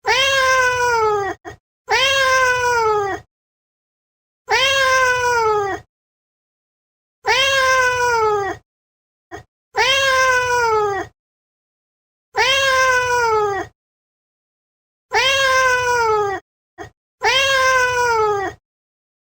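A domestic cat meowing, eight long meows each falling in pitch, every two to three seconds, with a few short chirps between them. The meows are all the same shape with dead silence between, like one recorded meow repeated as a sound effect.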